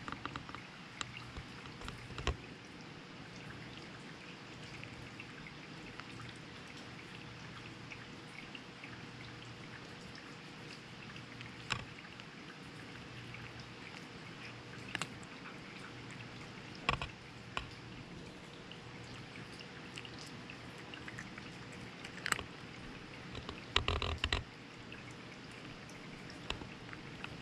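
A cat eating dry kibble from a rain gutter at close range: scattered sharp crunches and clicks over a steady hiss, with a louder cluster near the end.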